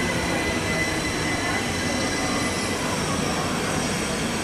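Southeastern Class 375 Electrostar electric multiple unit running past, a steady, even rumble and rush of the moving train. A thin high tone fades out after about a second and a half.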